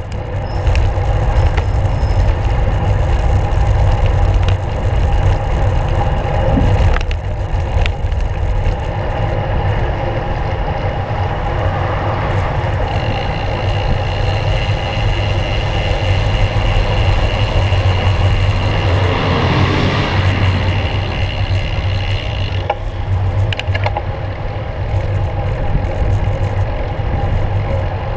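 Steady wind buffeting and road rumble on a handlebar-mounted GoPro of a road bike riding along a street, with scattered clicks and rattles from the bike and mount. The noise swells briefly about twenty seconds in.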